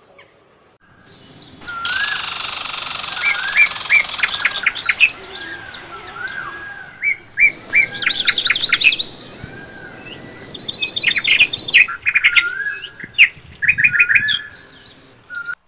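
Several birds chirping and singing at once: rapid series of high notes mixed with shorter rising-and-falling whistled calls. The sound breaks off abruptly and restarts twice.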